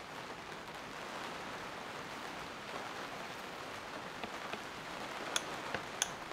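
Steady patter of rain on a tent roof, with a few light clicks in the second half as an Allen key turns bolts through the cart's aluminium plate.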